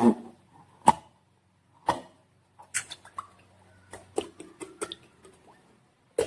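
Hands handling slime-making materials give irregular sharp taps and clicks. There are three single knocks about a second apart, then a busier run of smaller clicks and a last knock near the end.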